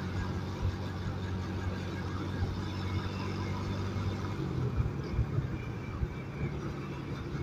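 Motorcycle engine running steadily while riding, over a constant rush of noise; a little past halfway the engine note steps up, with a few short knocks around then.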